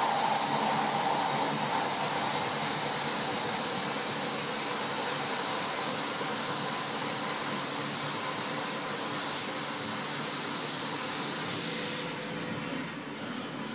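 ISCAR TangFin face mill taking a shallow 0.35 mm cut in 42CrMo4 steel under flood coolant spray: a steady hiss with faint machine tones beneath it. About twelve seconds in the high hiss cuts off as the cut ends and the coolant stops.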